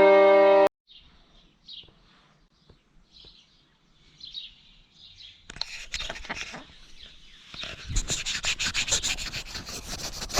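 Violin music cuts off under a second in, followed by faint chirps. From about five and a half seconds there is close rubbing and scraping, which becomes a fast run of rasping strokes from about eight seconds.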